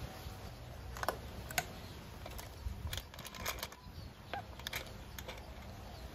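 Light, scattered metal clicks and taps of steel bolts and a socket extension being handled at a scooter's CVT cover, with a quick cluster of clicks about halfway through.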